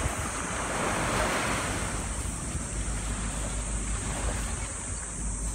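Small waves breaking and washing up a sand beach, a surf hiss that swells in the first couple of seconds and then eases, with wind rumbling on the microphone.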